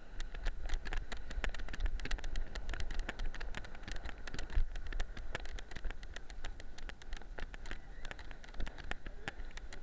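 Rapid, irregular clicking and knocking from an action camera harnessed to a moving weimaraner, its mount rattling as the dog's paws move over shingle, with wind buffeting the microphone.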